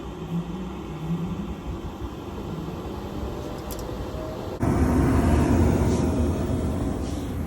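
A 5-ton gas-electric package unit running steadily, then suddenly getting much louder about four and a half seconds in as its heating section kicks in, with a heavy low hum.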